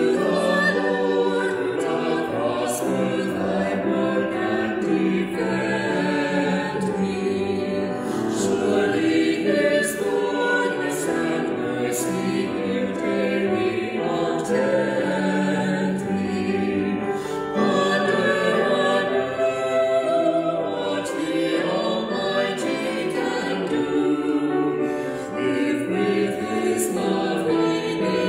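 A small vocal trio of two women and a man singing a hymn together.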